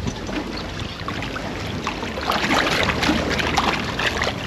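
A large Atlantic halibut thrashing at the surface on the line, splashing water. The splashing grows louder and busier from about two seconds in.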